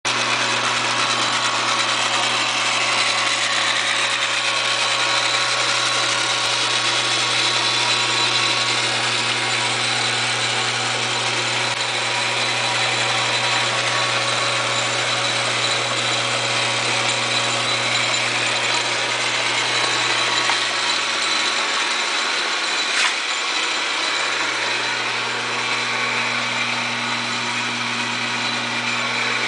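1942 South Bend 9A metal lathe running steadily, a continuous mechanical whir over a low hum, with one sharp click about two-thirds of the way through.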